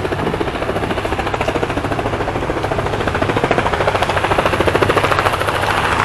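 Loud, fast, steady chopping pulses of a running motor, growing louder over the middle of the stretch.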